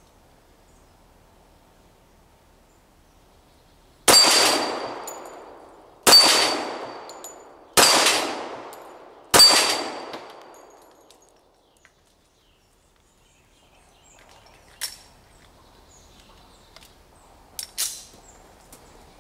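Four .45 ACP pistol shots from a Ruger American Pistol, about two seconds apart, each striking a steel knock-down plate with a ringing clang and a long fading tail. A few much fainter sharp ticks follow later.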